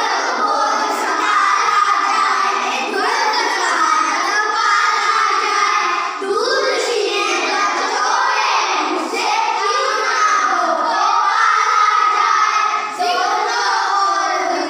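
A group of children singing a patriotic song together, loud and without a break.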